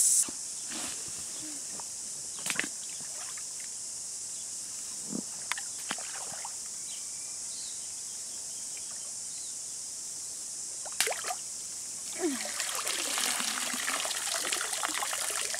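Water trickling and sloshing as a fishing net is hauled out of a pond, starting about twelve seconds in, after a quiet stretch with a few faint knocks.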